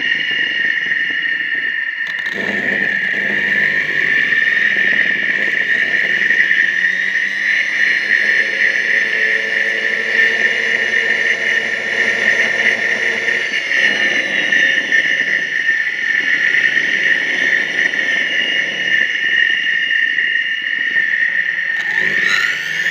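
A motor running with a steady high-pitched whine and shifting lower tones, rising in pitch near the end.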